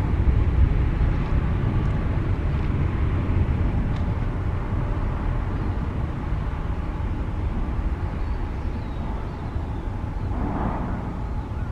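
Jet airliner's engines rumbling as it passes close by, loudest at the start and slowly fading.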